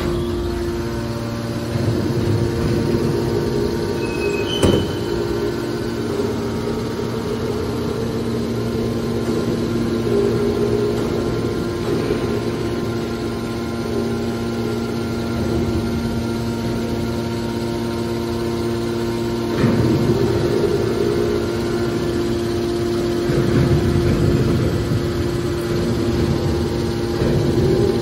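Y81T scrap metal baler's hydraulic power unit running: the electric motor and hydraulic pump give a steady hum with two clear tones, rising several times into louder, rougher stretches. A single sharp clank about five seconds in.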